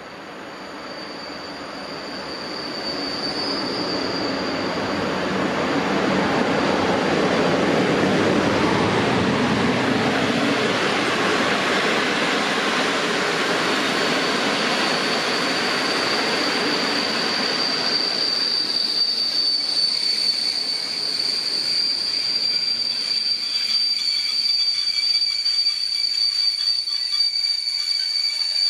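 PKP Intercity passenger train hauled by an EP09 electric locomotive coming in alongside the platform. The rumble of the locomotive and coaches builds over the first few seconds and eases about two-thirds of the way through. This leaves a steady high squeal as the coaches slow almost to a stop.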